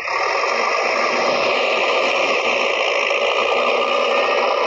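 Steady rolling noise of a plastic toy excavator's wheels running over rough concrete. It starts abruptly and holds level.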